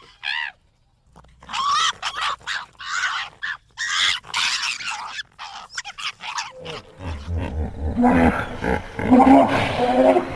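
Animal calls: a run of high, warbling cries in short bursts for about five seconds, then from about seven seconds in a deep, rough roar.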